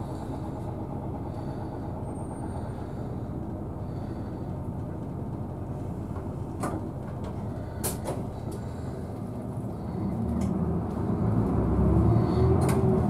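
City route bus's engine heard from inside the cabin, idling at a standstill and then growing louder about ten seconds in as the bus pulls away from the lights. Two sharp clicks sound in the middle.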